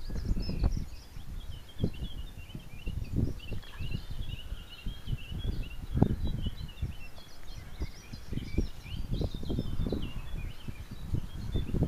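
Small birds twittering steadily in many short high chirps, over irregular low rumbling gusts of wind buffeting the microphone.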